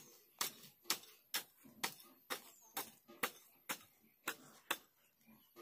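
A hand tool chopping into the ground in a steady rhythm of about two strikes a second, stopping near the end: weeds being cleared from the field before ploughing.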